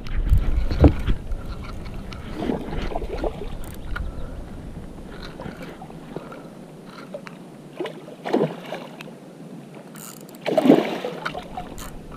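Irregular splashes and knocks around a sit-on-top kayak while a big pike is played and landed alongside. The loudest come at the start and about three-quarters of the way through.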